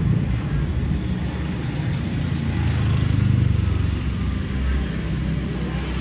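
Low rumble of passing road traffic, swelling about halfway through as a vehicle goes by.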